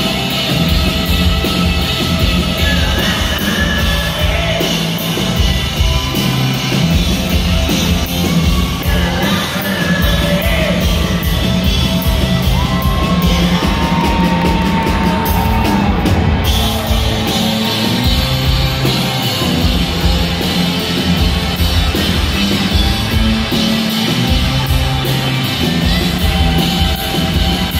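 Rock band playing live in a large hall: electric guitars, bass and drums with a singer, loud and continuous.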